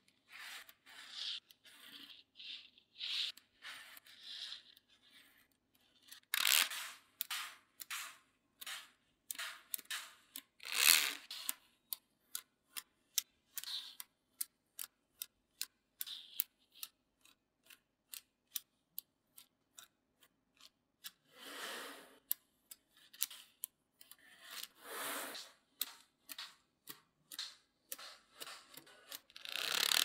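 Small magnetic balls clicking as they snap together, with a quick run of sharp clicks, about two or three a second, through the middle. A few louder short rattling rushes come as sheets of the balls are handled and laid down.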